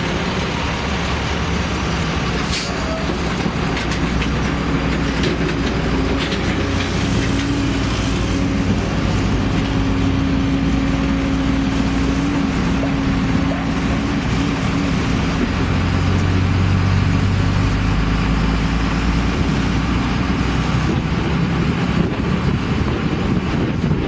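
Car driving along a road: steady engine and road noise with a low droning hum.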